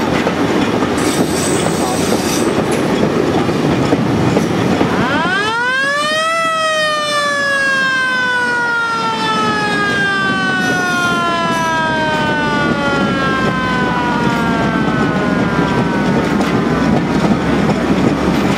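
Rail track machine DR73250 running along the line with steady rail noise. About five seconds in, its siren winds up to a high wail in a second or so, then slowly winds down over about ten seconds.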